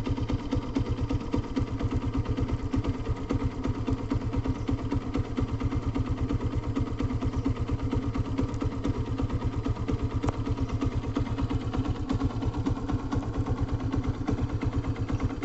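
Motorcycle engine running steadily with an even, rapid firing pulse, heard from on the bike as it rides along.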